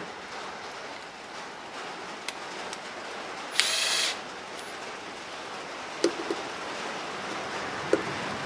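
A cordless drill-driver whirs briefly, for about half a second a little under four seconds in, running a screw into a MIG welder's wire-feed drive roll assembly. A few light clicks and taps follow over a steady hiss.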